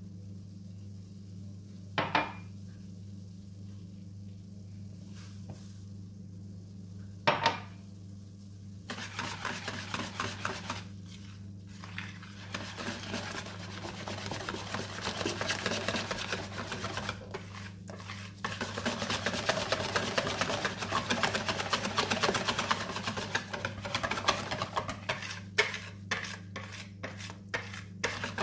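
Wire whisk beating crepe batter in a plastic bowl: rapid scraping and clicking of the wires against the bowl. It starts about a third of the way in and gets louder and busier about two-thirds in. Before the whisking there are two sharp knocks, and a steady low hum runs underneath.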